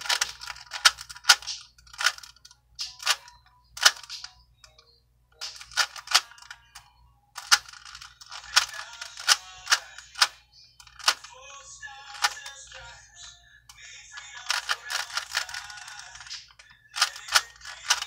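Plastic 3x3 Rubik's cube being turned by hand: irregular clicks and clacks of the layers snapping round, with quicker flurries of turns about eight seconds in and again about fifteen seconds in.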